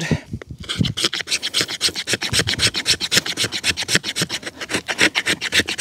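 Demko FreeReign knife blade scraping a fatwood stick in quick, even strokes, rasping off fine resinous shavings as fire-starting tinder.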